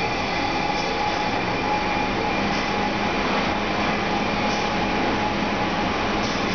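Thyssen-M.A.N. diagonal traction elevator car running along its inclined shaft, heard from inside the cab: a steady running noise with a faint hum and light clicks about every two seconds.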